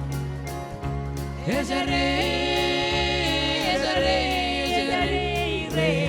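Gospel song: a backing track with steady bass and a regular beat, and a sung line that swoops up about a second and a half in and then holds long, sustained notes.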